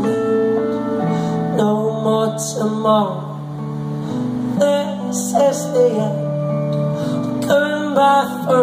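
Electric guitar played live: sustained chords that change every few seconds, under a higher melody line that bends and slides in pitch.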